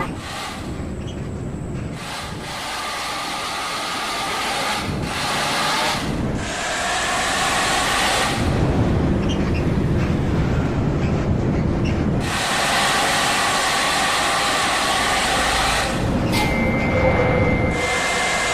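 A bus driving on the road: engine and tyre noise as a steady rushing, changing abruptly several times.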